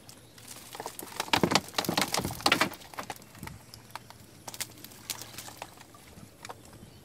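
Small fish being shaken out of a bamboo box trap into a plastic crate. About a second in comes a dense burst of rattling and pattering that lasts nearly two seconds, then scattered light taps follow.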